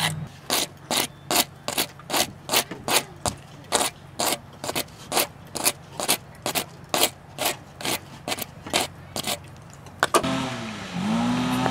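Hand rasp filing the back of a white PVC plumbing-pipe bow, smoothing it: quick back-and-forth scraping strokes, about three a second, that stop a little after nine seconds in.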